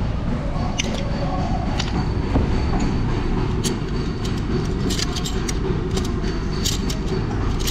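Repair-shop noise: a steady low rumble with many light, sharp metallic clinks of hand tools and parts being handled during clutch work.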